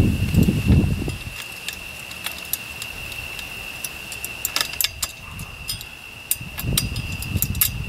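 Small metal clicks and clinks of a latch pin and steel tube frame parts of a game cart being fitted together by hand, coming thickest in the second half. Some rustling handling noise in the first second, against a steady high-pitched tone.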